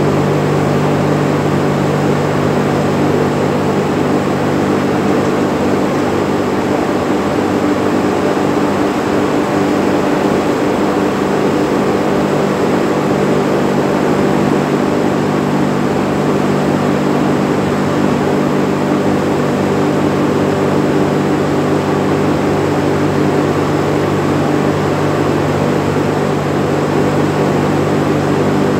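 High-pressure washer running steadily: a constant machine hum under the hiss of the water jet being sprayed onto a vertical radiator.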